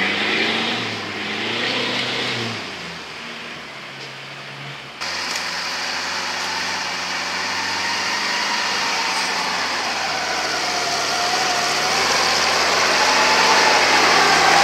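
A small off-road SUV's engine revving on a forest climb, fading after two or three seconds. About five seconds in, a Steyr-Puch Pinzgauer's air-cooled flat-four engine takes over, running steadily under load on a muddy climb and growing louder.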